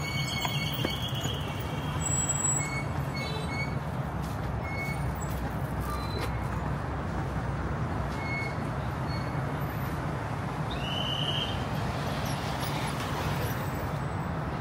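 Steady low rumble of city traffic, with a few brief high squeaks.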